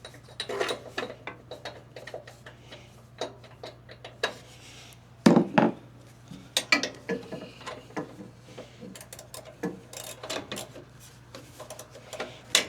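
Metal hand tools clinking, clicking and knocking on a mower's engine as a spark plug is taken out, with a louder knock about five seconds in.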